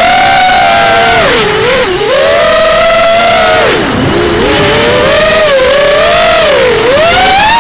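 Diatone Crusader FPV racing quadcopter's motors and propellers whining up close, the pitch rising and falling with the throttle: two short dips about two and four seconds in, then a climb near the end.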